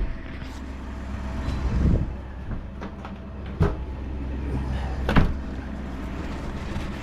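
Pickup truck engine idling steadily, with a few short knocks about two, three and a half, and five seconds in.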